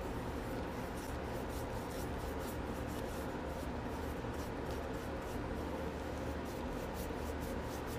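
Small paintbrush brushing primer onto a pine table leg in quick, short, scratchy strokes, over a steady low hum.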